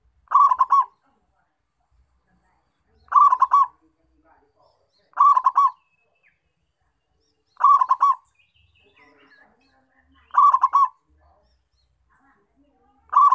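Zebra dove (perkutut) singing its cooing song: six short phrases of quick, rolling coos, one every two to three seconds.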